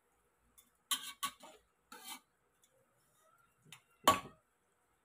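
Metal spatula knocking and scraping against a wok while stirring chicken pieces in a little broth: a few short clatters, the loudest about four seconds in.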